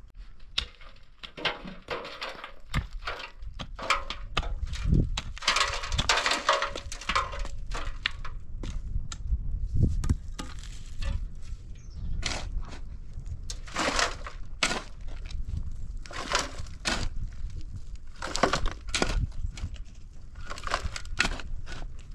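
Irregular crunching, scraping and knocking: many short strokes, some in quick clusters, louder in bursts around the middle.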